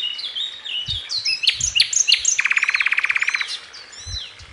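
Birdsong laid in as a nature sound effect: many short, high chirps and whistles from several birds, with a fast, even trill a little over two seconds in that lasts about a second.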